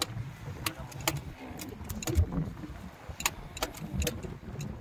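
Rough rumble of wind and sea around a small open fishing boat, with a dozen or so sharp clicks and knocks at irregular intervals, the loudest about two seconds in.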